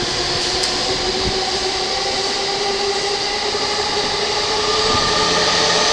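Electric commuter train's motors and inverter whining as it pulls away, several tones rising slowly in pitch, over the steady running noise of the train, growing a little louder near the end.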